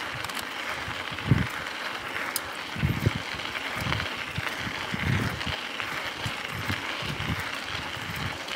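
Mountain bike rolling along a dirt single-track trail: a steady rustling hiss of the tyres on the ground, with irregular low thumps and a sharp knock about a second in.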